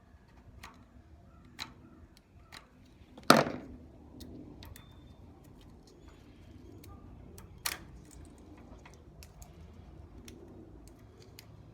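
Scattered small clicks and taps of hand work on wiring: a knife and plastic Scotchlok connectors being handled as electrical tape is cut away. There is one loud knock about three seconds in and a sharp click near eight seconds.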